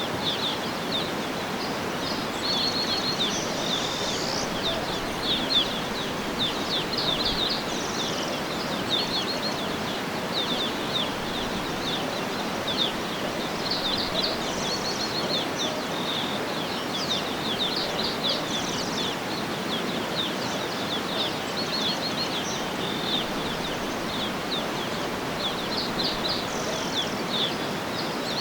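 Many small birds chirping and trilling in quick high notes over a steady rushing background noise.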